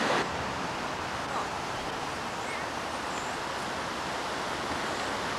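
Steady rushing of creek water spilling over a low concrete weir. A fraction of a second in it drops to a quieter, more even rush.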